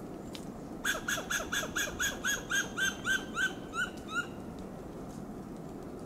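Western gray squirrel giving its alarm call: a rapid, staccato series of about a dozen short calls at roughly four a second. The calls start about a second in, slow slightly, and stop around four seconds in.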